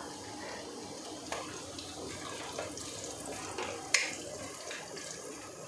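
Chopped garlic and whole spices sizzling gently in hot ghee in a nonstick pot, a steady hiss. A wooden spatula stirs and knocks against the pan, with one sharp knock about four seconds in.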